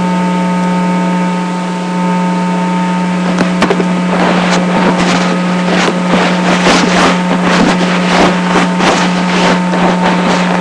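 A loud, steady low buzzing hum of unknown origin at one fixed pitch with faint higher overtones. From about four seconds in, crackling noise is laid over the hum.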